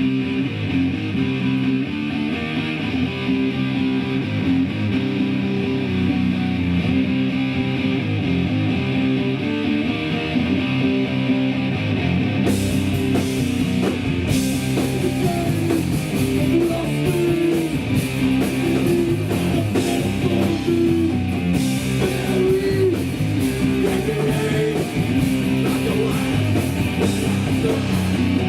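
A hardcore punk band playing live: electric guitar riffing on its own at first, then the drums and cymbals come in about twelve seconds in and the full band plays on.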